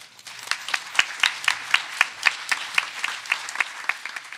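Audience applauding, with one person clapping close to the microphone at a steady four or so claps a second over the crowd's clapping; the applause thins out near the end.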